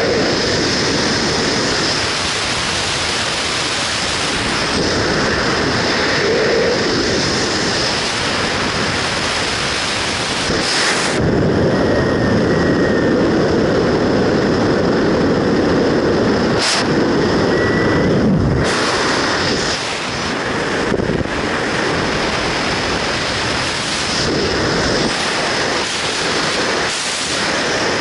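Freefall wind rushing over the camera microphone during a wingsuit flight, a loud steady rush. For several seconds in the middle it turns heavier and duller.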